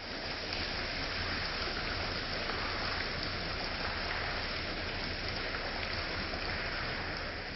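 A small rainforest stream flowing and babbling over rocks, a steady rushing of water with a low rumble underneath.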